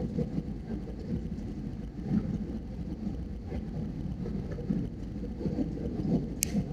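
Airbus A320 cabin noise on descent: a steady low rumble of the jet engines and air rushing over the airframe, heard from a window seat. A brief sharp high click sounds near the end.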